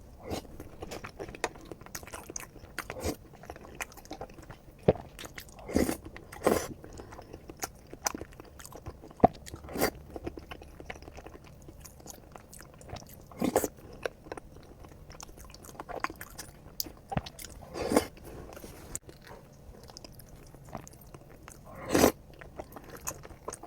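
Close-miked eating: a person biting and chewing food, with wet chewing clicks and several louder crunchy bites spread across the stretch.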